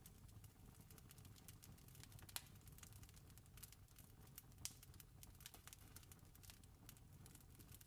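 Wood fire crackling faintly: a steady run of small crackles, with two sharper pops about two and a half and four and a half seconds in, over a low rumble.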